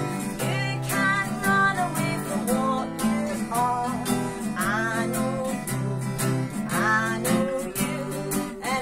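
Live acoustic guitar strummed in a steady rhythm, with a woman singing over it from about a second in.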